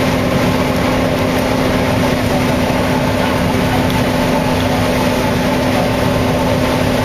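Combine harvester running steadily in a soybean field: a loud, even machinery drone with a constant hum and no change in pace.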